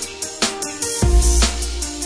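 Background music with a drum beat and deep sustained bass under held melodic notes.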